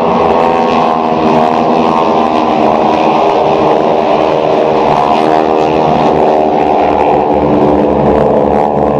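Piston engines of a formation of propeller planes passing overhead, a steady many-toned drone; the low rumble grows stronger near the end.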